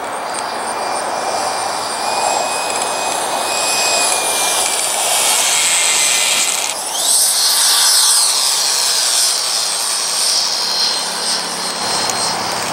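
Radio-control model F-4 Phantom jet flying a fast low pass: a loud, high-pitched engine whine that shifts sharply in pitch as the model goes by close, about seven seconds in, where it is loudest.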